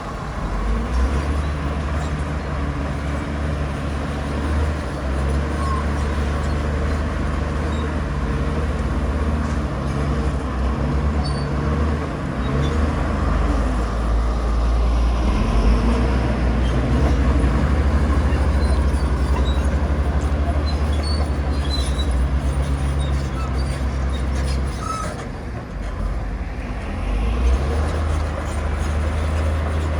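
Heavy diesel earthmoving machinery running steadily, a deep engine drone with mechanical noise over it, easing off briefly near the end and then picking up again.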